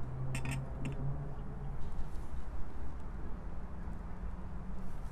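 Two light clicks about half a second apart, as an aluminium spirit level is set down on concrete cinder blocks, over a steady low background hum.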